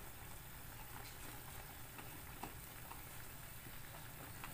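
Soy-sauce and calamansi braising liquid bubbling faintly at a boil in a frying pan, with a few soft taps of a wooden spatula as the pork chops are stirred.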